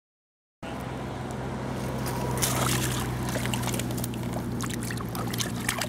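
Hands splashing and trickling in shallow pond water at the bank, with small drips and splashes over a steady low hum. It starts suddenly after about half a second of silence.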